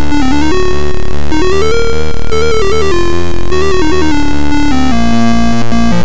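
Electronic background music: a synthesizer melody over a steady, quick pulse.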